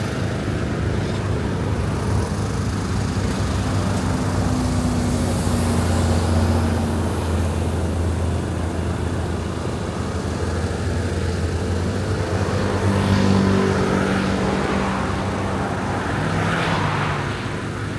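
Road traffic: cars and other vehicles passing one after another, with a continuous engine hum and swells of tyre noise as each goes by.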